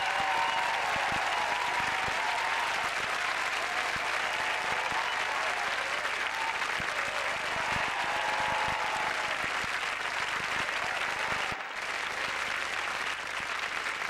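Large studio audience applauding steadily, with a few voices cheering over the clapping. The applause drops out for an instant near the end, then carries on a little quieter.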